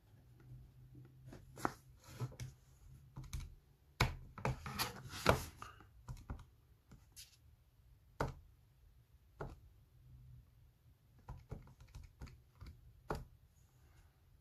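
Buttons of a Casio fx-82AU Plus II scientific calculator being pressed, irregular single clicks with a denser, louder run of clicks about four to six seconds in.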